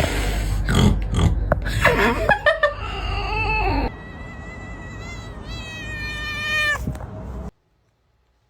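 Domestic cats making odd, unusual vocalisations: first a noisy, gliding call over a low hum, then, after a cut about four seconds in, a high, thin, wavering call repeated in short pulses. The sound stops abruptly about a second before the end.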